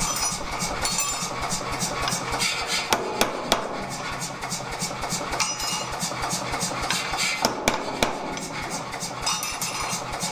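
An 88 lb Anyang power hammer striking a red-hot swage block held in tongs, in a rapid, even run of blows, with a steady low hum underneath.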